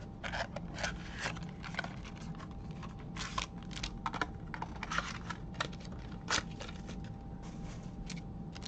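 Wrapper of a pack of baseball cards crinkling and tearing as it is opened, with cards shuffled in the hand: a string of short, irregular crackles and rustles.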